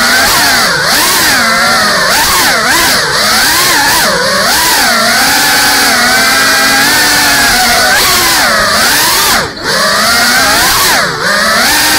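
GEPRC Cinelog 35 ducted FPV quadcopter's brushless motors and propellers whining, the pitch swinging up and down constantly as the throttle changes. The level drops briefly twice near the end as the throttle is cut.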